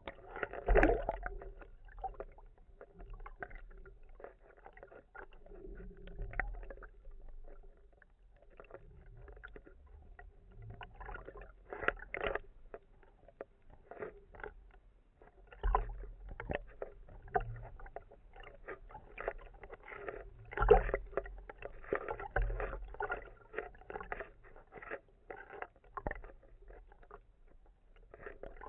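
Underwater sound heard through a camera housing on a speargun just below the surface: water sloshing and gurgling against the housing over a low rumble, broken by irregular clicks and knocks that come louder at times, about a second in and several times later on.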